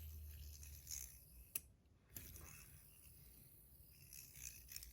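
Faint handling of a fidget spinner with PEI buttons: a few light clicks, one sharper click about a second and a half in, over near-quiet room tone.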